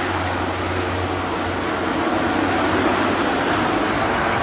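Small twin-engine turboprop plane's engines running steadily on the ground: a steady rush of propeller and engine noise over a low hum, swelling slightly about halfway through.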